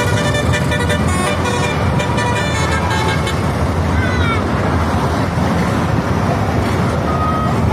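Tunggal Jaya bus's 'Basuri' telolet horn, a multi-tone musical bus horn, playing a run of changing notes for about the first three seconds, then stopping. The bus engine's low rumble and road traffic noise carry on under it and after it.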